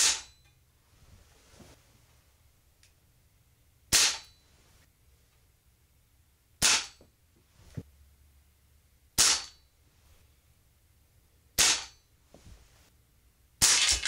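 Six shots from a Crosman American Classic multi-pump pneumatic pellet pistol, each a sharp crack with the pellet hitting a plastic alarm keypad. The shots come about two to four seconds apart.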